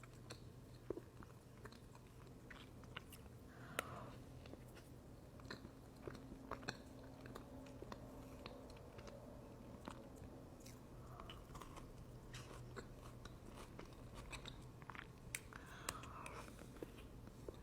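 Soft close-up chewing of chocolate cake, with faint wet mouth sounds and small scattered clicks.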